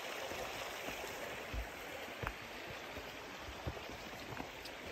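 Shallow rocky stream running over stones: a steady rushing hiss of water. A few soft low thumps come through it.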